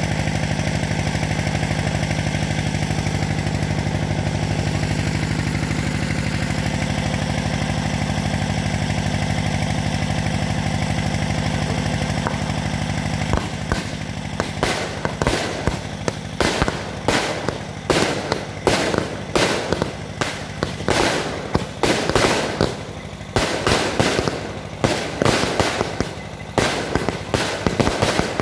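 A steady low motor drone, then from about halfway a string of loud fireworks going off, sharp bangs one or two a second, each with a short crackling tail.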